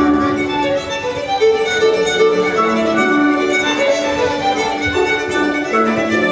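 Instrumental music, a melody of long held notes over a fuller accompaniment.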